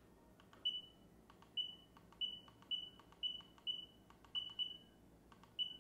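NOSFET AERO electric unicycle's control-panel button being pressed repeatedly, each press giving a faint click and a short, high beep. There are about nine beeps, roughly two a second, each one stepping a ride setting up by one increment.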